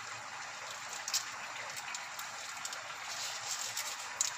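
Pot of water at a boil, a steady fine bubbling hiss, with a few light clicks as dry spaghetti is pushed down into it.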